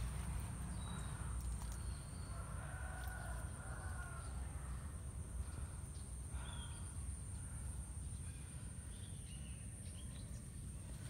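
Rural outdoor ambience with a steady low rumble, typical of wind on the microphone. A rooster crows faintly about two seconds in, and small birds give short chirps now and then.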